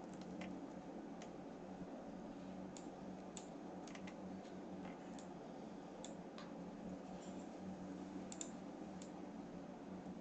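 Faint, scattered clicks of a computer mouse and keyboard, a dozen or so at irregular intervals, over a steady low hum.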